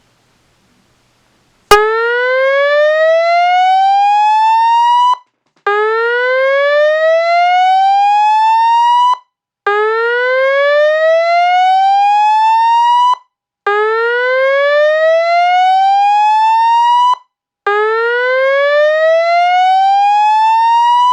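Red Atlas Sound AP-15TUCR fire-alarm cone speaker sounding an evacuation "slow whoop" tone. It plays five loud rising sweeps, each climbing for about three and a half seconds, with a short gap between them. A click comes just before the first sweep.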